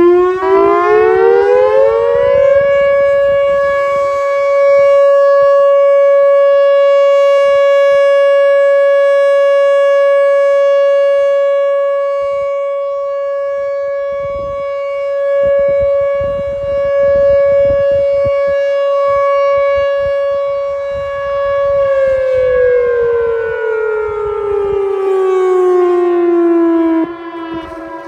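Whelen WPS 4004 outdoor warning siren sounding a steady alert at about 560 Hz. It rises in pitch over the first couple of seconds and then holds one tone, swelling and fading slowly as the rotating head sweeps past. It winds down in pitch near the end and cuts off.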